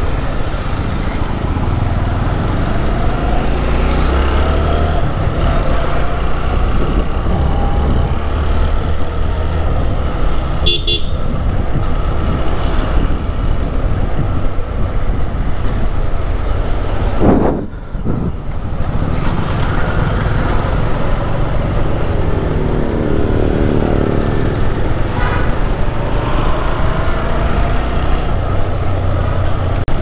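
Motorcycle engine running under way through town traffic, with road and wind noise. Other vehicles' horns toot now and then, and the engine sound drops briefly a little over halfway through.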